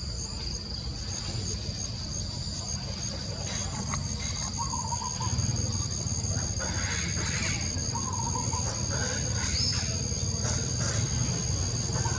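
Outdoor ambience: a steady high insect drone, with a short wavering call repeating about every three and a half seconds. A low rumble grows louder about halfway through.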